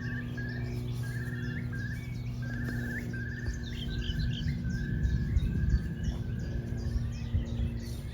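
A bird calling the same short note over and over, about one and a half calls a second, over a steady low hum.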